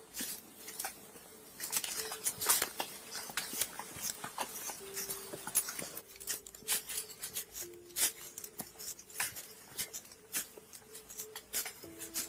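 Footsteps and the rustle and clicking of clothing and gear, picked up close by a police body camera as officers walk up stairs and through a building. The taps come irregularly, a few a second, over a faint steady hum.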